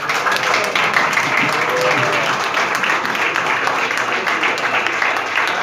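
Audience applauding: dense, steady clapping with a few voices mixed in.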